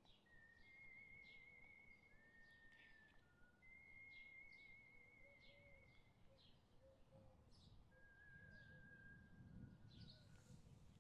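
Near silence with faint birds calling: short repeated chirps and a few long, wavering whistled notes, with a faint low rumble near the end.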